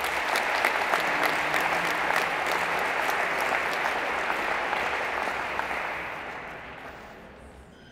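Audience applauding: dense, steady clapping that dies away over the last couple of seconds.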